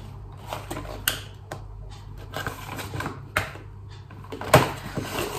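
A cardboard box being handled and turned in the hands: scattered light taps and clicks of fingers on the cardboard, with a sharper knock about four and a half seconds in.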